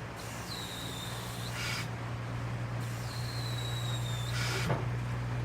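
Pneumatic tyre changer working its wheel clamps: short hisses of air and two whistle-like tones about a second long, over a low steady hum.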